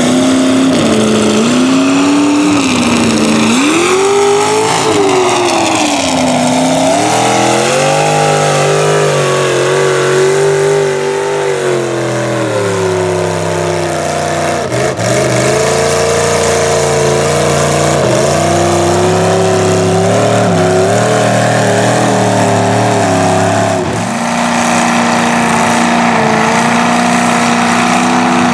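Big mud truck engine revving hard as the truck churns through deep water and mud, its pitch climbing and falling with the throttle. The revs drop briefly a few times, about halfway through and again about two-thirds of the way through.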